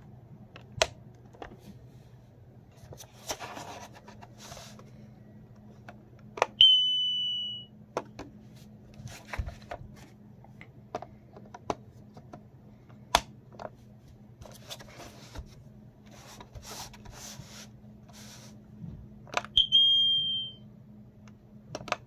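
Kidde P4010DCS-W smoke alarm giving two single high beeps about thirteen seconds apart, each about a second long. Scattered clicks, knocks and rustles come from the alarm being handled and its switch turned with a screwdriver.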